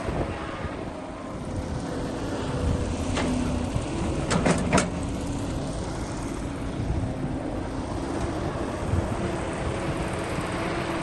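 A heavy diesel machine's engine running steadily. There is a sharp knock about three seconds in and a quick run of three knocks about a second later.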